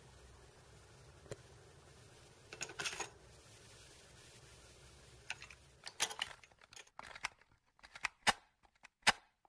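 Plastic clicks and clatter of a cassette tape being handled and loaded into a Panasonic portable cassette recorder, its keys clicking, over a faint steady hum. The clicks come singly at first, then in a cluster about a third of the way in, then as a run of sharper separate clicks in the second half, where the hum falls away.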